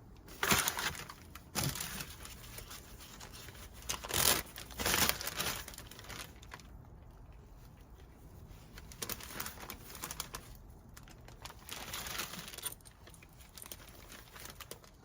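Plastic bag crinkling and rustling in irregular bursts as it is handled while wheel bearings are packed with grease.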